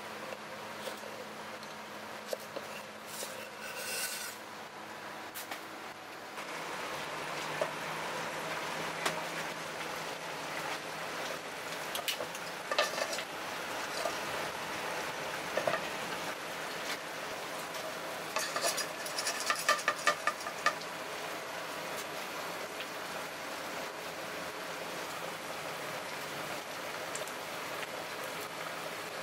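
Quiet knife work on a wooden cutting board. From about six seconds in comes a steady hiss from the pan of oil over the gas flame, which becomes garlic cloves sizzling gently in the oil. A quick run of metal clinks from the pan and utensils comes past the middle.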